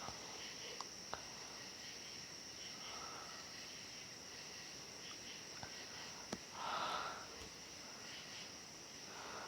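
A woman sniffling with a runny nose: soft, short sniffs every few seconds, the loudest about seven seconds in, over a steady faint high-pitched hiss.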